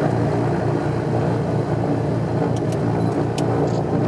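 Twin Lycoming six-cylinder piston engines and propellers of an Aero Commander 500S Shrike Commander running with a steady drone, heard inside the cabin. A few light clicks come through near the middle.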